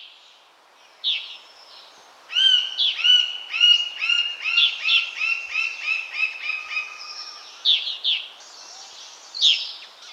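A woodpecker calling. It gives a few sharp single calls, then a long run of evenly repeated notes at about two or three a second for roughly five seconds, then more single sharp calls near the end.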